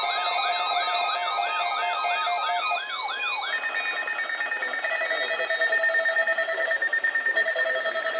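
Several weather radios sounding their alert alarms at once: a fast, repeating, rising siren-like sweep, about three a second, over steady tones. About three and a half seconds in the sweep stops and a steady high tone with rapid beeping takes over.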